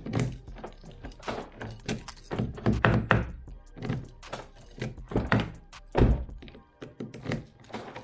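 A newly replaced outer door handle on a Toyota Corolla being pulled and let go again and again, each pull and snap-back giving a sharp thunk or click from the handle and latch, the loudest about six seconds in. The new handle is working properly.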